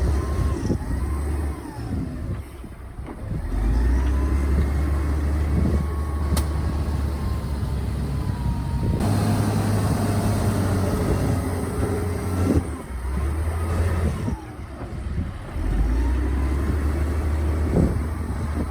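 Heavy diesel earthmoving machinery working: a deep, steady engine drone, with the sound changing abruptly several times.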